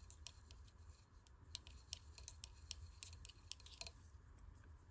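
Faint, irregular clicking of knitting needles tapping against each other as stitches are knit, a few clicks a second.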